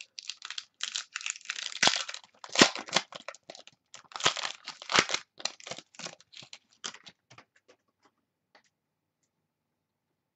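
A pack of trading cards being torn open and handled: irregular tearing and crinkling of the wrapper, with the cards shuffled, for about seven seconds.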